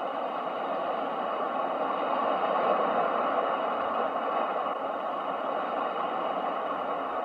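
Ocean waves: a steady rush of surf that swells to its loudest about three seconds in, then eases.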